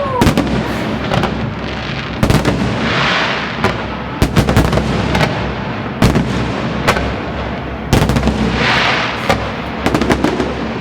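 Fireworks salute shells bursting in a rapid, irregular series of loud bangs, with two short bursts of hiss, one about three seconds in and one near nine seconds.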